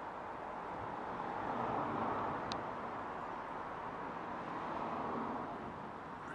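Steady outdoor background rush, swelling and easing twice, with one faint click midway.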